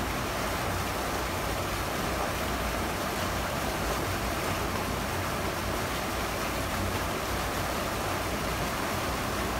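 Water pouring steadily over a low concrete weir into a canal: an even, unbroken rush.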